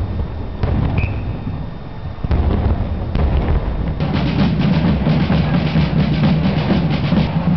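Fireworks going off with separate sharp bangs. About halfway through, drums take over, playing a fast, even beat.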